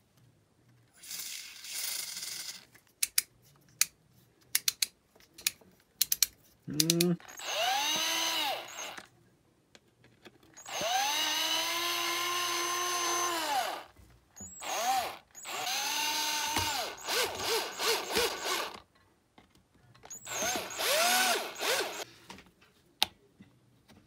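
A short spray hiss and a run of sharp clicks, then a small electric motor whirring up to speed, holding and winding down in several bursts.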